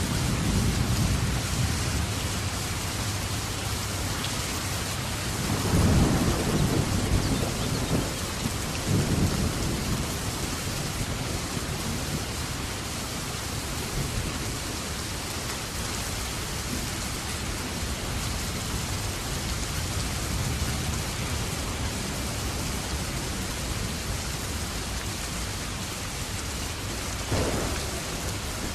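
Steady rain falling, with low thunder rumbles, the loudest about six seconds in and a shorter one near the end.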